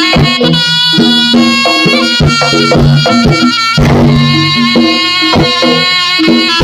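Jaranan gamelan-style ensemble music: hand drums struck in a busy, steady rhythm under a sustained, high melody line that moves from note to note.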